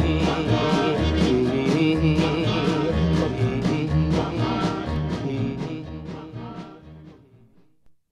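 1950s doo-wop record with vocals over a steady beat of about two strokes a second, fading out to silence near the end.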